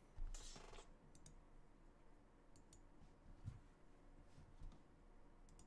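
Near silence: quiet room tone with a brief soft noise just after the start and a few faint, scattered clicks.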